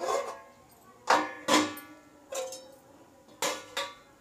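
Stainless steel lid and cookware knocking against each other and the steel stove top, each knock ringing out briefly like struck metal; about six knocks over four seconds, the loudest about a second in.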